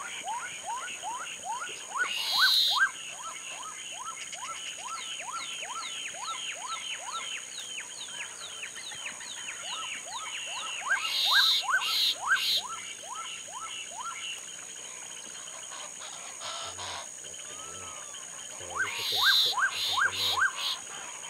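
A pair of black-capped donacobius in their duetting display: a fast run of loud rising whistled notes, about three a second. Three times, short harsh bursts break in, and there is a pause in the whistling a little past the middle.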